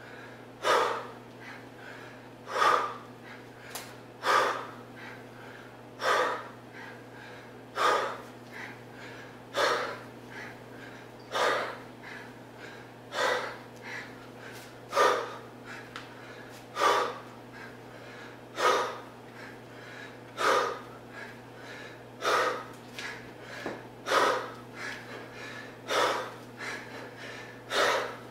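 A man breathing hard while swinging a 40 kg kettlebell, with a sharp, forceful breath out on each swing, about one every two seconds in a steady rhythm and softer breaths in between.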